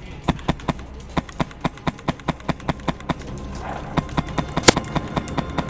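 Quick running footsteps, about four to five a second, with one sharper crack about three-quarters of the way through.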